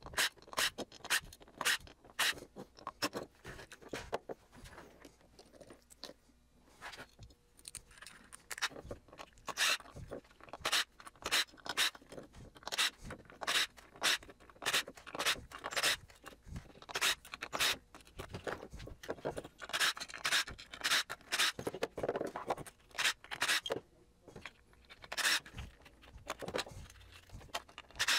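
Screws being backed out of a satellite LNB's metal housing with a DeWalt cordless driver: a long run of irregular clicks and scrapes as the bit works the screws and the housing is handled.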